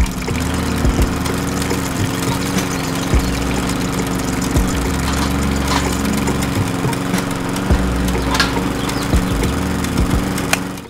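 Small single-cylinder engine running steadily, as on a miniature toy engine driving a juice press, with a few sharp clicks over it. It stops abruptly at the very end.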